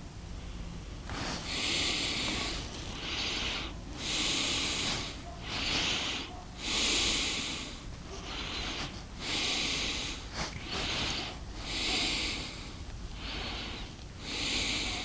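A person breathing hard and rhythmically, loud hissing breaths in and out about once a second, as in a shamanic trance breathing practice.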